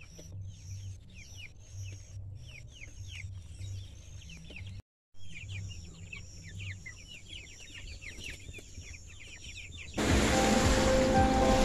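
A flock of young broiler chicks peeping: many short, high, falling chirps overlapping continuously, broken once by a short gap. About ten seconds in, loud background music comes in over them.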